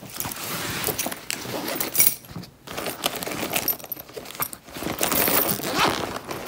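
Hands rummaging through a backpack: fabric rustling and scraping close up, with small metal clinks, and a couple of brief pauses.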